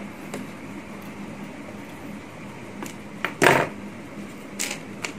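Handling noise from the parts of an airliner scale model being moved about on a tabletop: a few light clicks and one louder, brief knock about three and a half seconds in, over a steady low hum.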